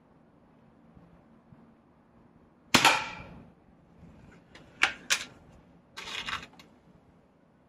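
A single shot from a .177 Weihrauch HW99S break-barrel spring-piston air rifle about three seconds in, with a short ringing decay. It is followed by two sharp clicks and a brief rasping noise as the rifle is handled.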